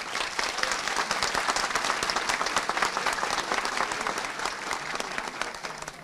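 A crowd of people applauding, steady clapping that starts at once and tapers off near the end.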